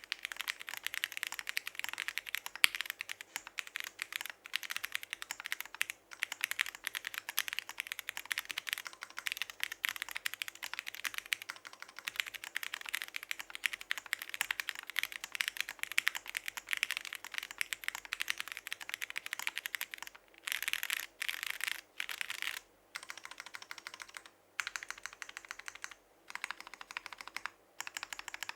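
Fast continuous typing on an Alice-layout mechanical keyboard with Cherry MX Hyperglide Clear Top Black linear switches, an aluminium plate and PBT keycaps, a dense run of key clacks. From about twenty seconds in the typing comes in shorter runs with brief pauses between.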